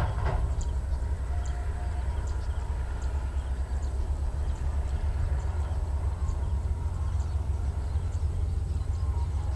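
Distant passenger train rolling along the track, a steady low rumble, with faint short high ticks repeating about every two-thirds of a second.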